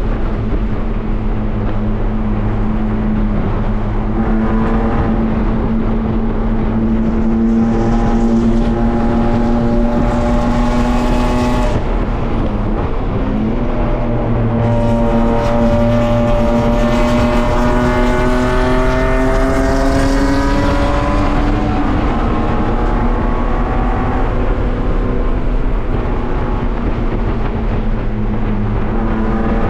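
BMW E36 race car's engine heard from inside its stripped, caged cabin, pulling hard with its pitch climbing slowly, dipping briefly about twelve seconds in, climbing again and then easing off after about twenty-one seconds, over a constant low rumble.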